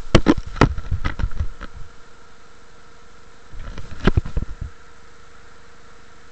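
Handling noise on the camera's microphone: a cluster of knocks and rubbing in the first two seconds and another about four seconds in, over a steady faint hum.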